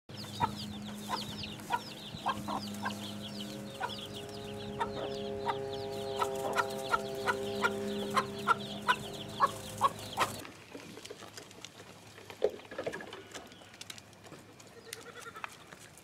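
Chicks peeping continuously in quick, high, falling chirps while a mother hen clucks steadily at about two clucks a second, over a low steady hum. It cuts off abruptly about ten seconds in, leaving quieter sound with a few scattered calls.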